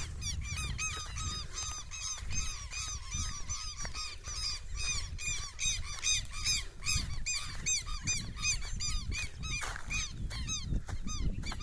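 Waterbirds calling in a continuous chorus of short, arched, repeated calls, about four or five a second, at several overlapping pitches, over a low wind rumble on the microphone.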